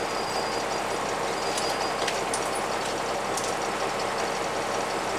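Bus diesel engine idling steadily, heard from inside the bus, with a few faint clicks and knocks of things being moved about.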